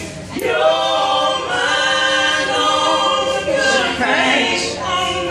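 Several voices singing a song together, with acoustic guitars strummed along, in a live bar set.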